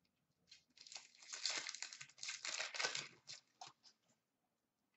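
Foil wrapper of a hockey card pack crinkling and tearing as it is ripped open. The crackling rustle starts about half a second in, is densest in the middle and dies away near the end.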